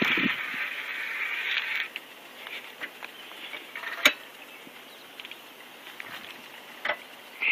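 Bicycle coasting on a paved path, its freewheel hub ticking in a rapid buzz that is louder for the first two seconds and then fades, with a sharp knock about four seconds in.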